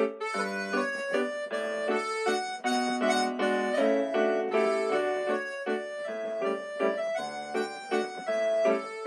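Instrumental background music: a simple melody of short, distinct notes played on a reedy keyboard-like instrument.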